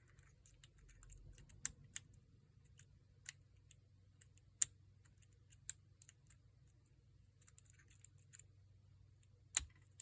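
Lock pick working the pins inside a Paclock 90A-PRO padlock: scattered small, irregular clicks of the pick and pins, with sharper clicks about four and a half seconds in and near the end.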